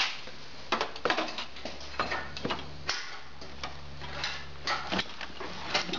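Irregular metallic clicks and light clanks from an engine hoist being jacked up, lifting the engine and transmission out on its chain, over a low steady hum.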